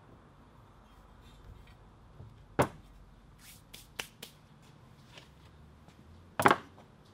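Steel grinder parts and hand tools knocked and set down on a wooden workbench. A sharp knock comes about two and a half seconds in, a few light clicks follow around four seconds, and a louder clank comes near the end.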